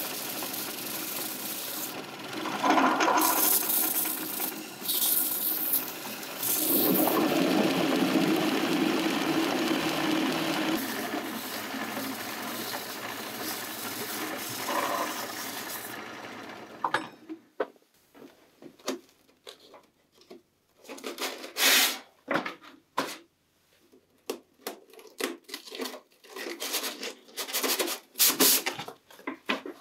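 Belt sander running and grinding rust off an old pocket-knife blade, the grinding louder in stretches; it stops a little past halfway. After it, a run of sharp rustles and clicks as sheets of sandpaper are handled.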